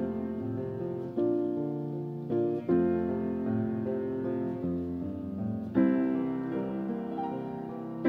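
Background piano music: a gentle melody over chords, each struck and left to ring and fade, with a new chord every second or two.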